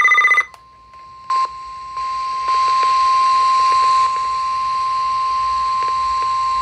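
NOAA Weather Radio Emergency Alert System signal: the tail of a warbling SAME digital data burst, then the single steady 1050 Hz warning alarm tone, which steps up in loudness over the first couple of seconds and then holds. It is received over weather radio with background static hiss and a few faint clicks.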